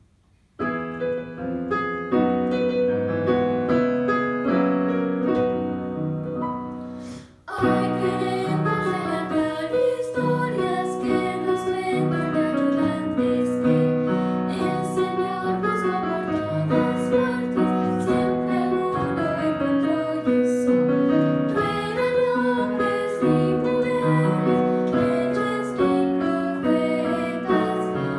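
Children's song with keyboard accompaniment: the keyboard plays an introduction of about seven seconds, breaks off for a moment, then girls sing the song over the keyboard.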